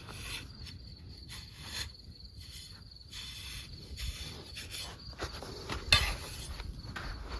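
Crickets chirping steadily, over scattered crunching steps and handling noise, with one sharp click about six seconds in.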